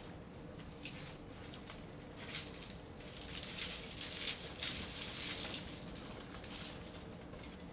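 Raccoons' paws rustling through dry fallen leaves: a run of irregular rustles that builds to its loudest in the middle and then eases off.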